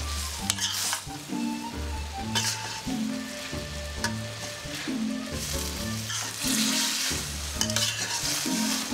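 Bamboo shoot strips sizzling in hot oil in a metal wok while a metal spatula stirs them, with sharp scrapes and knocks of the spatula against the pan every second or so.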